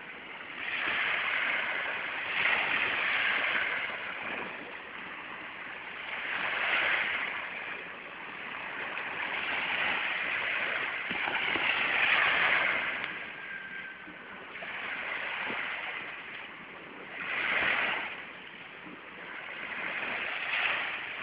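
Sea waves washing in and drawing back, a hiss that swells and fades every few seconds.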